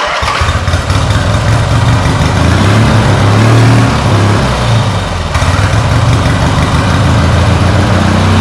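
Turbocharged lawn-tractor engine catching and running unevenly, its speed surging up and down. The owner puts this down to an air-fuel mixture problem: it runs rich on startup, then the carburetor can't get enough fuel and starves itself.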